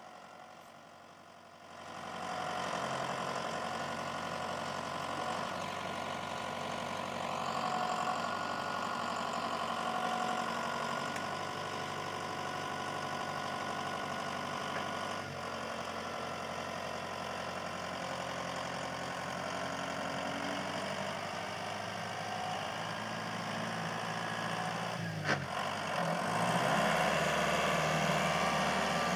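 Farm tractor engine running steadily. Its speed dips and comes back up about 25 seconds in, with a brief knock, and it runs a little louder after that.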